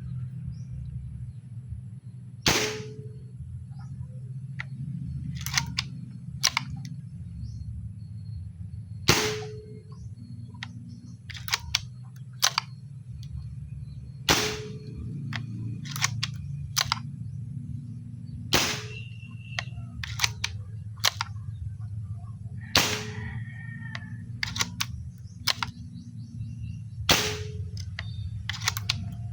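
Homemade PVC pneumatic airgun firing six times, a sharp crack every four to five seconds, with lighter clicks and knocks between the shots. A steady low hum runs underneath.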